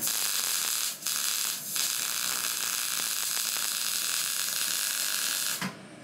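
MIG welder arc crackling steadily while welding a joint in a steel exhaust pipe. It breaks briefly twice in the first two seconds and stops shortly before the end.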